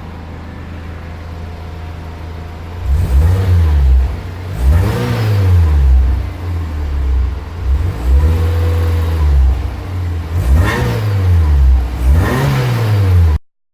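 Volkswagen Saveiro Pepper's exhaust, fitted with a 4x1 header and the original intermediate and rear mufflers, idling steadily and then revved about five times in quick blips, each rising and falling in pitch. The sound cuts off abruptly near the end.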